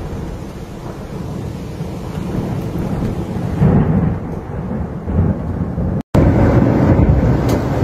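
A thunderstorm: low rolling thunder rumbles and fades, then swells again about halfway through, over heavy rain. After a brief dropout about six seconds in, a louder rush of rain noise follows.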